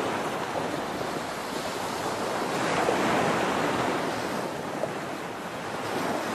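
A steady rushing noise like surf, swelling about three seconds in and easing off again.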